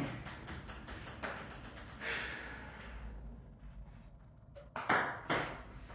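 Table tennis ball clicking and tapping on the table and paddle, with two louder sharp knocks near the end.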